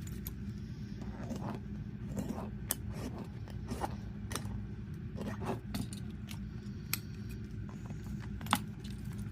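Scattered small clicks and scrapes of watch-repair tools working the case back of a quartz watch open, over a steady low hum.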